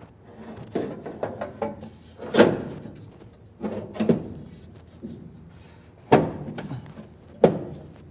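Steel gas tank support panel being set in place in a vintage Porsche 912's front body: a series of metallic knocks and clunks with scraping between them, the loudest about two and a half seconds in and near the end.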